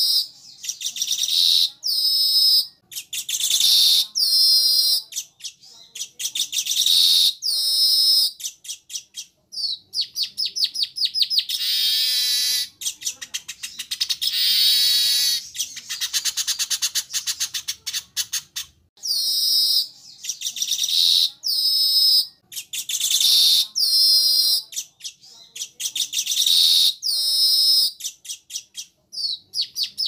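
Weaver birds singing: short, high, buzzy chattering phrases one after another, some opening with a quick run of ticks, with a longer drawn-out chatter near the middle.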